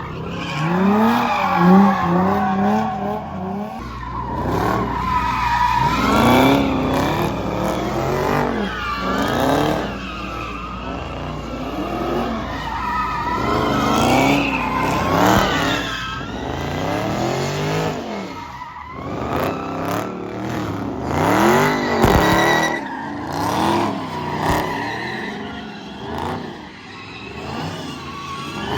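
Dodge Charger Scat Pack's 392 (6.4 L) Hemi V8 revving hard again and again, its pitch climbing and dropping every second or two.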